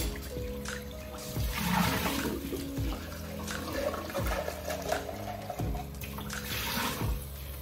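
Kitchen faucet running into a stainless steel sink, the stream splashing into and off a clear plastic cup as it is rinsed.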